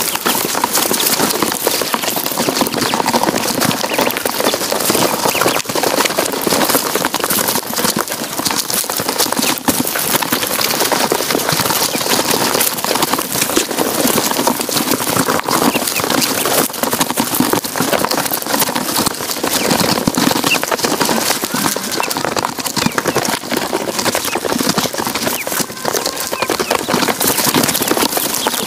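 A brood of ducklings crowding a metal feed dish in straw: a steady, dense patter of bills and feet tapping on the metal, mixed with the birds' peeping.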